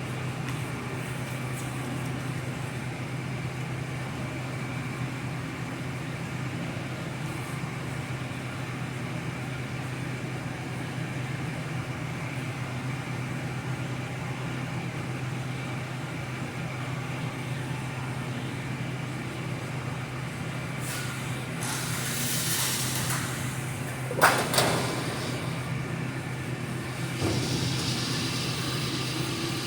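Steady low hum of running shop machinery, with a burst of hiss shortly before two sharp knocks about 24 seconds in, and more hiss near the end.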